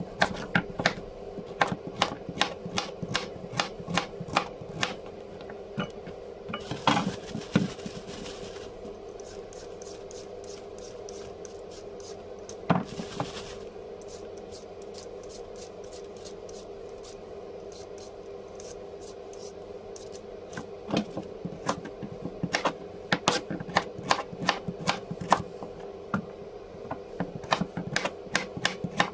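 Kitchen work: quick, irregular runs of sharp taps and clicks, with a couple of short scraping sounds, then a lull of several seconds before the tapping starts again near the end. A steady hum runs underneath.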